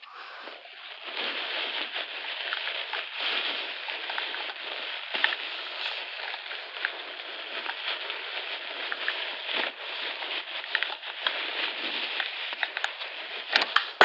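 Hands crinkling and crushing a crumpled white material, a steady crackle with many small snaps.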